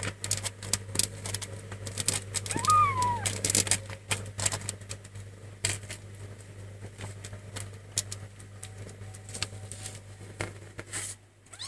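Kittens nursing from their mother cat, with a rapid, irregular patter of small clicks and smacks from suckling and jostling at the teats, and one short, falling kitten mew about three seconds in. A steady low hum runs underneath.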